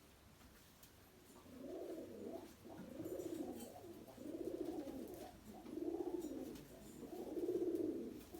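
Pigeon cooing: starting about a second and a half in, a string of low, rolling coos, one phrase about every second.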